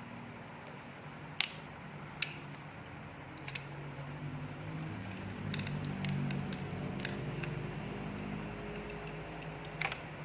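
A few sharp clicks from handling and plugging in a soldering iron handle's connector, over a low steady hum that grows louder in the middle.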